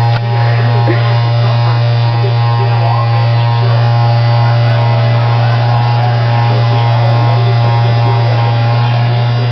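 Electric handheld back massager running with a loud, steady low buzz.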